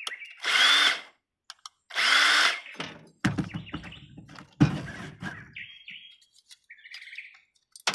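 A handheld power drill run in two short bursts, the motor's whine rising and falling each time, followed by knocking and clatter of metal parts being handled.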